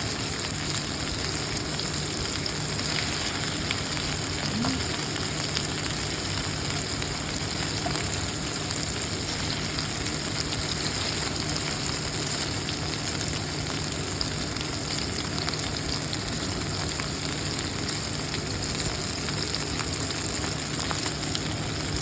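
Chicken breast pieces searing in hot avocado oil in a frying pan, sizzling steadily.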